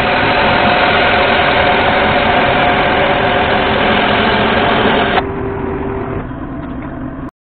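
Lathe running while boring a Nylatron bushing, with an air hose blowing into the bore to clear the chips: a loud steady whine over a hiss. The hiss drops off abruptly about five seconds in, and the sound cuts out briefly near the end.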